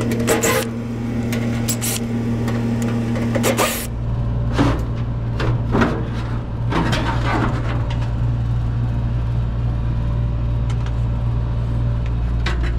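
Makita cordless drill-driver running steadily for about four seconds as it backs hex-head screws out of a sheet-metal fan assembly, then stopping. This is followed by several clanks and scrapes of sheet metal as the assembly is worked loose by hand, over a steady low hum.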